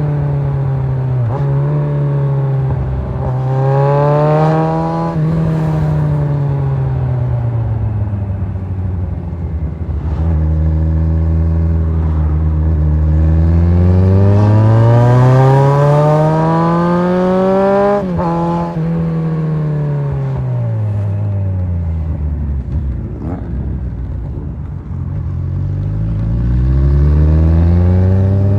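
Kawasaki Z1000 inline-four motorcycle engine under way, its pitch rising and falling as the rider accelerates and backs off. A short climb comes first, then a long steady climb that cuts back sharply as the throttle closes. The pitch winds down, then rises again near the end.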